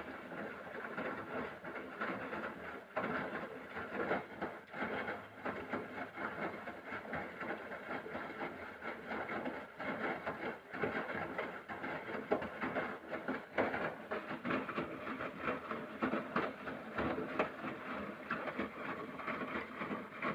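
Haier washing machine running during its rinse, an uneven churning clatter of the turning drum that cuts off suddenly at the very end.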